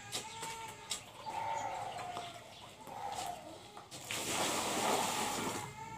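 Water poured out of a bucket, splashing as a rush of about a second and a half that starts about four seconds in. Before it come three faint, drawn-out wavering calls.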